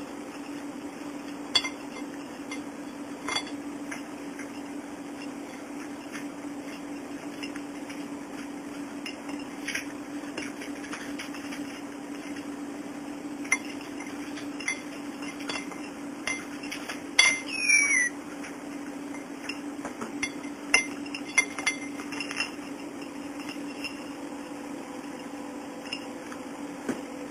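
Small plastic toys clinking and tapping against a ceramic plate as a young cockatiel pecks and pushes them about, in scattered sharp clicks. A short chirp from the cockatiel comes a little past halfway.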